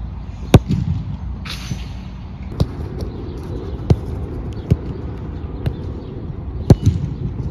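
Football being kicked on an artificial turf pitch: two hard strikes of the ball, one about half a second in and one near the end, with lighter touches in between.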